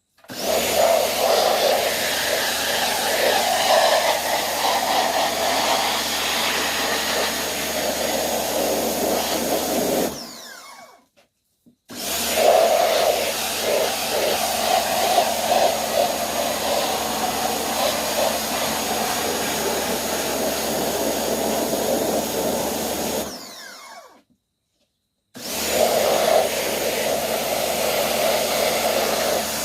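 Pressure cleaner running and spraying water at an aluminium fly-screen door, in three long spells, each about ten seconds long and tailing off, with short silent gaps between them.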